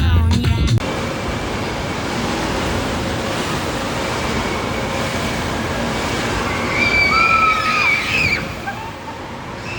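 Background music cuts off about a second in, giving way to the steady rushing wash of water and crowd noise in an indoor water park. A few brief high-pitched cries rise and fall near the end.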